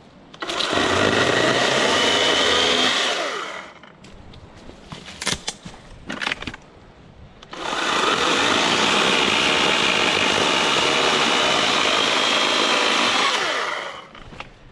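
A Greenworks Digipro 40V brushless battery chainsaw cuts through dead elm branches in two runs: a cut of about three seconds, and after a pause a longer one of about six seconds. A few knocks come in the pause between the cuts.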